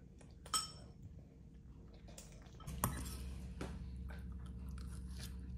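Faint clinks of a metal fork against a ceramic bowl, a few separate taps, the clearest about half a second in. A low steady hum comes in about halfway through.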